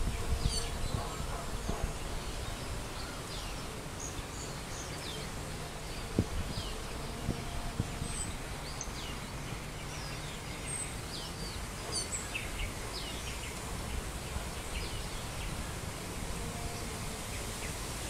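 Park ambience: small birds giving scattered short, high chirps over a steady low background noise.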